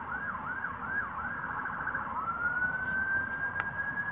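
Emergency-vehicle siren: a quick, repeating yelp that speeds up into a rapid warble, then about two seconds in changes to a long wail that rises and holds.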